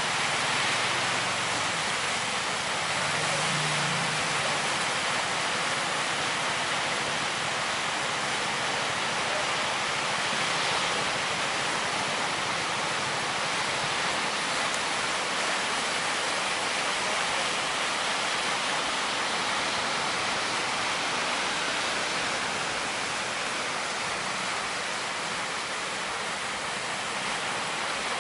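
Sea surf breaking and washing along a beach, a steady, even rushing noise.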